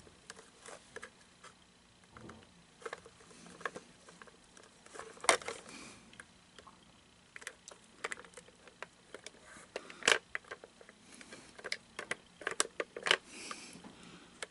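Irregular clicks, scrapes and small cracks of hard plastic as the shell of a Gemmy Johnny the Talking Toilet animatronic is pried at with a screwdriver to force it open. The sharpest snaps come about five seconds in and about ten seconds in, and again near the end.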